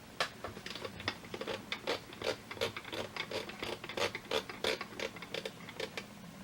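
Quiet run of small irregular mechanical clicks and scrapes, about three a second, from the Rhythm Star Wars alarm clock being handled and set.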